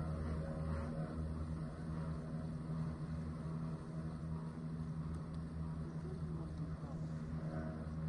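An engine running steadily, a constant low drone with a throbbing undertone.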